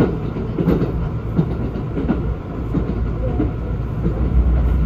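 Kintetsu 19200-series limited-express railcar running at speed, heard from inside the passenger cabin. A steady low rumble carries repeated clickety-clack knocks of the wheels over rail joints, and the rumble swells near the end.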